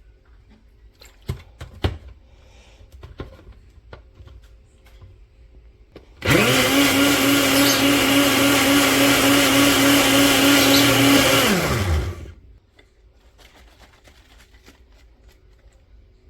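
Black+Decker BL2010BP countertop blender motor switched on, spinning up quickly to a steady high-speed whir for about five seconds, then switched off and winding down. A couple of light clicks come before it starts.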